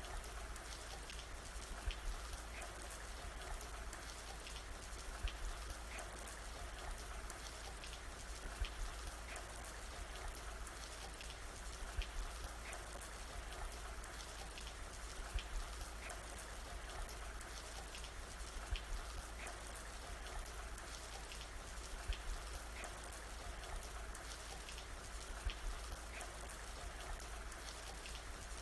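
Steady rain falling on a surface, individual drops ticking over a constant hiss, with a cluster of louder drops recurring about every three and a half seconds.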